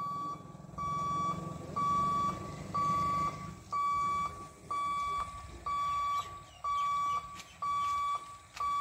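Level-crossing warning buzzer beeping while the boom barrier comes down: a steady, single-pitched electronic beep about half a second long, repeating about once a second. A low rumble runs underneath for the first few seconds.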